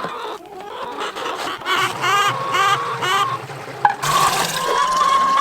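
Backyard hens clucking, with four short calls in a row about two seconds in, while water runs into their waterer.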